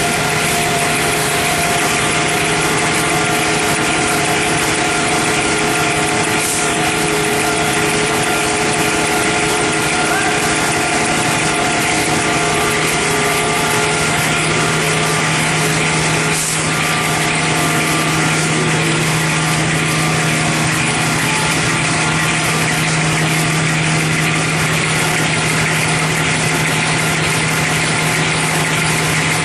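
High-speed log saw machine for facial tissue paper running: a steady, loud mechanical din with a constant low hum underneath.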